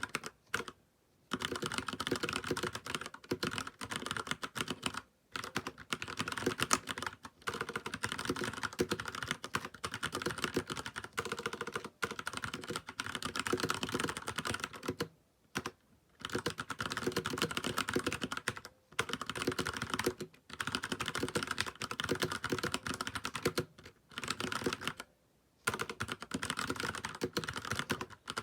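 Filco Majestouch Convertible 2 mechanical keyboard with stock Cherry MX Brown switches being typed on: fast, continuous runs of key clacks, broken by short pauses every few seconds.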